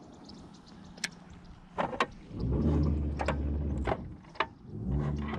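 Small electric boat motor humming in two short runs, the first for about a second and a half from about two and a half seconds in, the second near the end. Several sharp clicks come between them.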